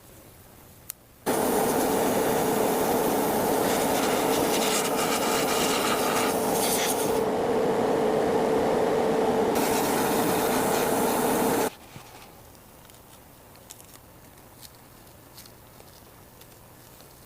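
Power tool grinding or sanding a surface with a steady hum and rough rasping. It starts abruptly about a second in and cuts off suddenly after about ten seconds, leaving faint room tone with a few light ticks.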